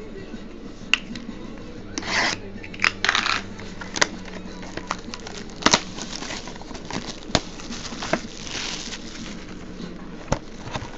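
A cardboard trading-card box being handled and opened by hand: several short bursts of rustling wrapper and cardboard, with scattered light taps and clicks.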